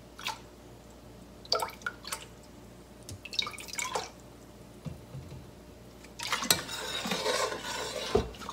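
Soy sauce trickling and splashing from a metal measuring spoon into a pot of dashi, in a few short spells. About six seconds in, a longer stretch of liquid being stirred in a stainless steel pot.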